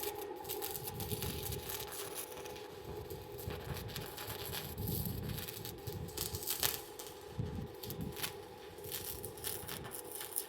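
Stick welding arc crackling and sputtering with irregular sharp pops, as a 2.5 mm rutile electrode burns on a Fimer X206 inverter welder. A steady hum runs underneath.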